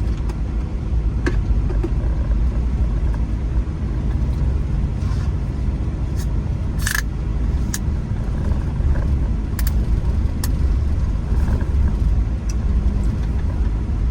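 Car driving, heard from inside the cabin: a steady low rumble of engine and tyres on the road, with a few short knocks and clicks.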